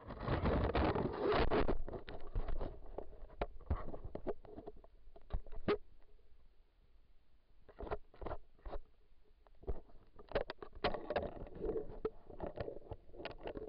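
Rustling, scraping and irregular knocks of an animal nosing and bumping right against a trail camera, its fur and snout rubbing the case close to the microphone. The noise is loudest in the first two seconds and picks up again in the last few seconds.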